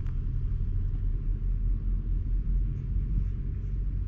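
Wind buffeting the camera microphone: a low, uneven rumble, with a few faint ticks.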